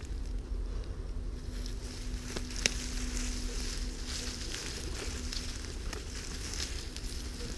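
Dry grass and leafy bush branches rustling and crackling as a leashed wolf and a walker push through the brush. A sharp snap about two and a half seconds in is the loudest sound.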